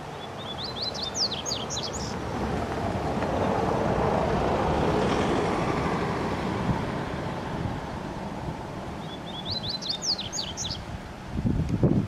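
Male yellow-bellied seedeater (coleiro baiano, Sporophila nigricollis) singing twice: each song is about two seconds of a few short high notes followed by a quick run of sharply down-slurred notes. The first song comes right at the start and the second about nine seconds in. Between them a rushing background noise swells and fades, and low buffeting thumps come near the end.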